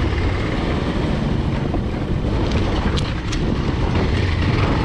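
Steady wind rush buffeting the camera microphone on a moving motorcycle, over a low engine rumble. Two short clicks come about three seconds in.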